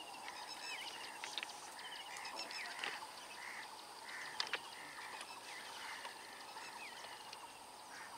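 Several birds calling with short repeated notes and quick downward chirps, over a faint steady hiss, with a couple of sharp clicks about three and four and a half seconds in.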